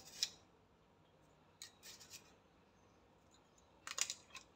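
Faint scraping and clinking of a metal spoon scooping seasoning from a glass jar into a small bowl of sauce. It comes in short bursts: one near the start, a couple around the middle, and a cluster near the end.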